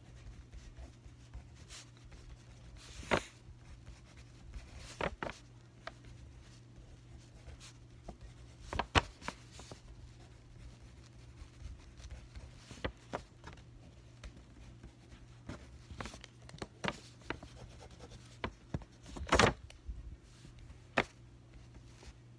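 Scattered clicks and knocks of desk work with markers and paper, the loudest about three seconds in, about nine seconds in and near the end, over a steady low hum.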